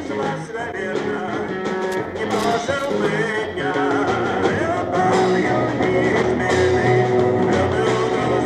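Rock band playing, electric guitars over bass and drums, from a 1977 concert recording; the music gets louder about halfway through.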